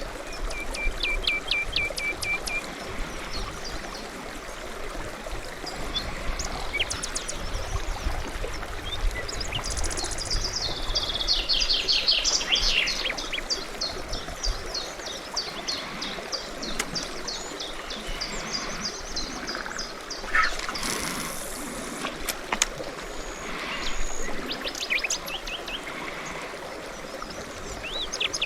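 Several songbirds singing, with rapid trills and chirps and one short held whistle early on, over the steady rush of flowing water.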